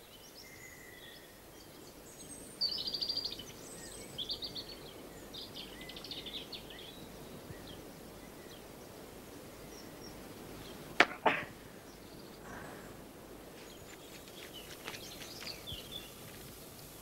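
Quiet outdoor ambience with scattered bird chirps and trills, and a single sharp crack followed by a brief rustle near the middle.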